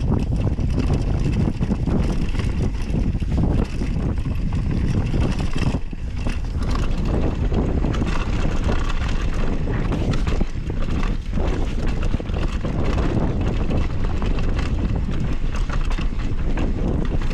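Mountain bike descending a rough, rocky dirt trail at speed: tyres rolling over dirt and stones and the bike rattling over the bumps, with steady wind noise on the microphone.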